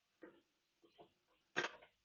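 A few faint clicks and knocks of a metal tool being seated inside a motorcycle fork leg onto the top of the damper tube, then a short murmur of voice about one and a half seconds in.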